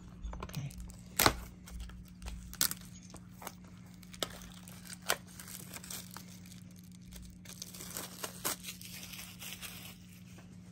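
Clear plastic shrink wrap being torn and peeled off a DVD case: crinkling with several sharp snaps and crackles.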